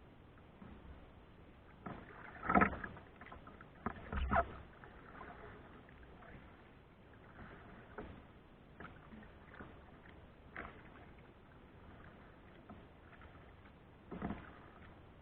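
Kayak paddle strokes: the paddle dipping and splashing in the water at an irregular pace, the strongest strokes a few seconds in, over a faint steady hiss.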